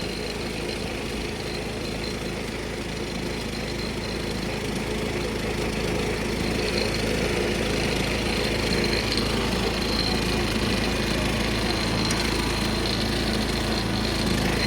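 1976 John Deere 300 riding lawn tractor's engine running steadily as the tractor drives along, growing a little louder over the first several seconds.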